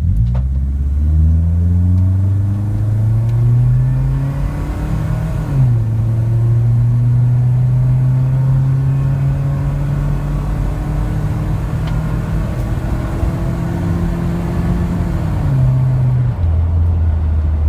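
Toyota Previa van's engine and exhaust, fitted with a Turbo Raptor muffler, accelerating from a standstill. The engine note climbs for about five seconds and drops at a gear change, then holds and slowly rises before falling away in two steps near the end as the van eases off.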